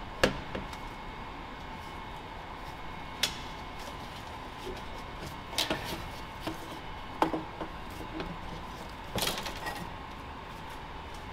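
Hand tools knocking and clinking on engine parts during turbo removal: a handful of sharp, separate hits spread out over several seconds, over a steady faint hum.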